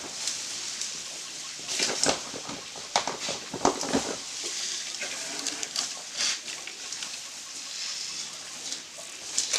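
Branches cracking and snapping, with leaves rustling, as an African elephant pulls at a tree. Clusters of sharp cracks come about two seconds in and again around three to four seconds in, with scattered snaps after.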